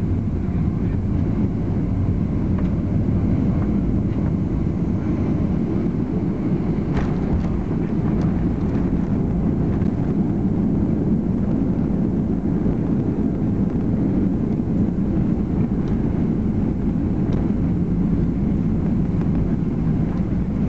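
Cabin noise of a Ryanair Boeing 737-800 during landing: a steady low rumble of engines, airflow and runway, with a faint knock or two about seven seconds in.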